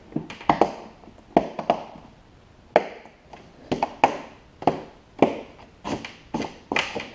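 Metal snap fasteners on a Molle panel being pressed shut one after another onto studs in a plastic cooler lid: a string of about a dozen sharp clicks at irregular spacing.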